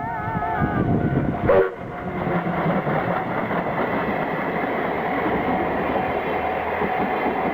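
A train running past a Japanese level crossing: a dense, steady rumble and rattle of wheels on rails, with the crossing's warning bell ringing underneath. A brief loud burst about one and a half seconds in.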